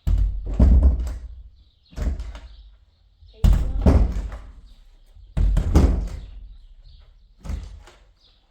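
Wooden door being banged: about eight heavy thumps, several coming in close pairs, each dying away over a second or so.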